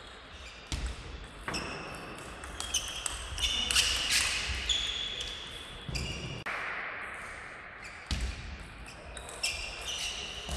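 Table tennis ball struck back and forth in a rally, a string of sharp separate clicks off bats and table, ringing in a large hall. Short high squeaks come between the hits.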